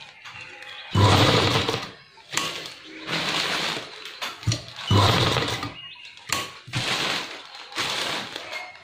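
Domestic sewing machine stitching in short runs of about a second each, five times, stopping and starting between runs; the first run is the loudest.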